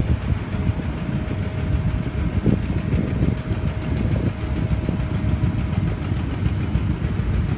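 Diesel engines of Link-Belt mobile cranes running steadily during a lift, a low continuous engine sound, with a faint steady whine that stops about six seconds in.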